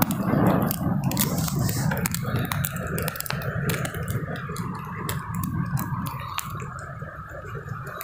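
Heavy rain heard muffled close to the phone: a low rumble with many irregular sharp taps of raindrops striking the phone and its microphone.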